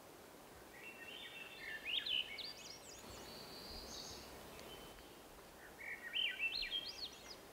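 A songbird singing. Two phrases of quick fluty notes climb upward in pitch, one about a second in and one near the end, with a steady whistled note between them, over a faint hiss.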